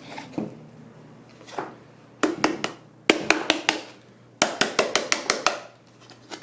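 Sharp taps on the sides of a small electric blade coffee grinder, to knock the grounds down before the lid is lifted. They come in three quick runs, the last and longest about eight taps.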